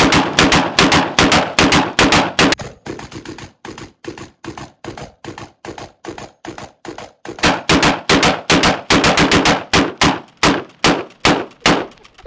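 Rapid gunfire from two AR-style rifles on a spinning home-built rotary frame, at about seven shots a second. The shots are softer and more widely spaced through the middle, then loud again. One rifle is not firing properly, which the shooter puts down to a possible malfunction.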